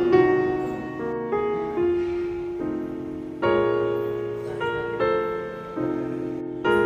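Background music: a slow piano melody, each note struck and then left to fade.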